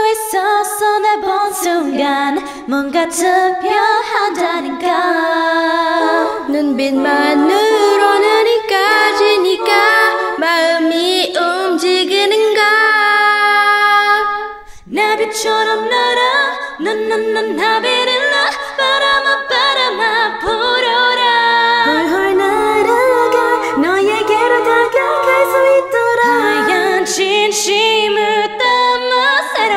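Several multitracked female voices singing a K-pop song a cappella in layered harmony, with no instruments. About fifteen seconds in the voices briefly drop away after a held high note, then come back in.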